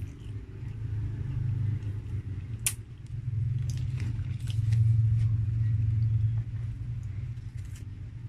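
A low steady rumble that swells to its loudest in the middle, with a few light clicks and taps scattered over it.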